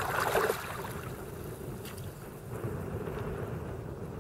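Wind buffeting the microphone over water lapping at a kayak, with a brief splash of the paddle in the water right at the start.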